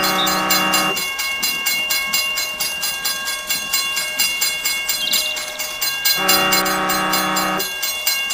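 Battery-operated toy steam locomotive running, its sound unit playing a steady fast chugging. Twice a held electronic train whistle sounds, each for about a second and a half: once at the start and again about six seconds in.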